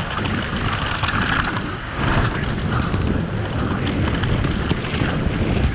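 Wind rushing over the microphone and knobby tyres rolling over a dirt track as a Santa Cruz V10 downhill mountain bike descends, with small clacks and rattles from the bike over the bumps.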